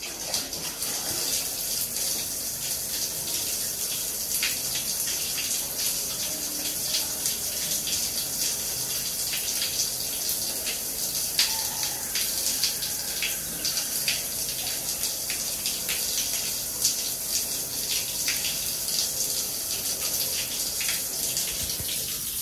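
Shower running, a steady hiss of water spraying onto a wet tiled floor, with many small sharp splashes and drips on top.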